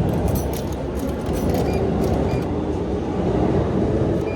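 JR East train running along a station platform: a loud, steady noise of wheels and running gear, with a low hum coming through more clearly near the end.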